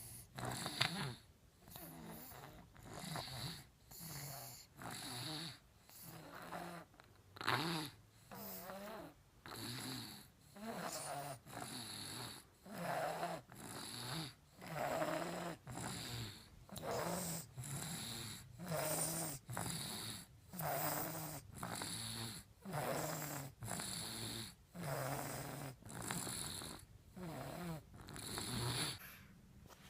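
A sleeping baby snoring, one snoring breath about every second in a steady rhythm.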